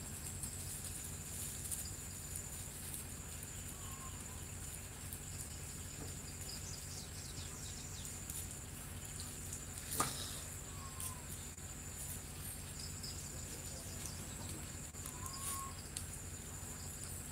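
Steady high-pitched insect trill with three short bird chirps and a single sharp click about ten seconds in.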